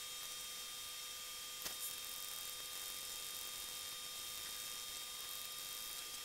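Steady electrical hiss with a faint whine of several fixed high tones, and a single click a little under two seconds in.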